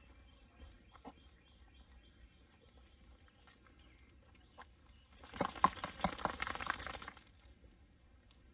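Quiet outdoor ambience with faint bird chirps. About five seconds in, a loud burst of rustling and rapid clicking lasts about two seconds, then stops.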